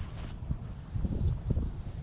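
Wind buffeting the microphone: an uneven low rumble that swells and dips.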